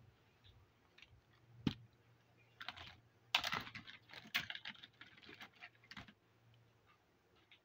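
Small hard-plastic toy pieces clicking and tapping as they are handled and set down on a hard surface. A single sharp click comes just under two seconds in, then a quick run of taps through the middle, and one more click a couple of seconds later.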